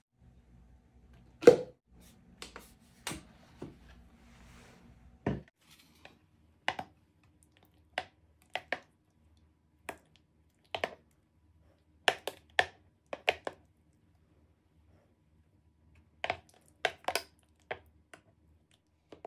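A plastic ice cream scoop knocking and scraping against the plastic Nutribullet blender jar while thick frozen smoothie is dug out: scattered sharp taps and knocks, the loudest about one and a half seconds in. A faint hum dies away about five seconds in.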